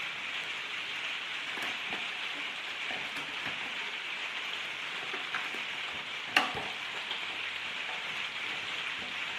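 Heavy rain falling, a steady hiss, with a few faint ticks and one sharp click about six seconds in.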